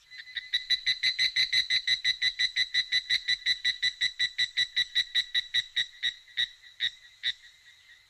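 Recorded animal-call sound effect from an animatronic bird display: a rapid, even trill of about six pulses a second, which slows to a few spaced pulses and stops near the end.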